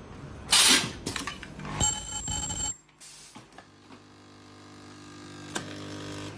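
Carbon-granule filling and ultrasonic welding machine running: a short, loud burst of hiss about half a second in, a few clicks, a ringing tone, then a steady hum that grows gradually louder.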